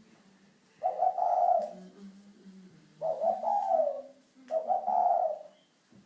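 Spotted dove (cu gáy) cooing: three low coos of about a second each, the last two close together.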